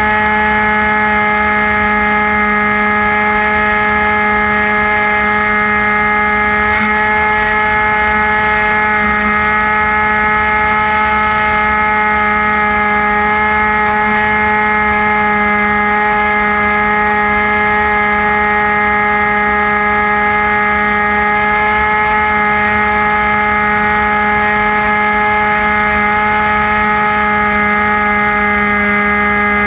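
Electric brushless motor and pusher propeller of a HobbyKing Bixler model plane, heard from a camera on board, running with a steady whine that holds one pitch throughout, over a low rush of air.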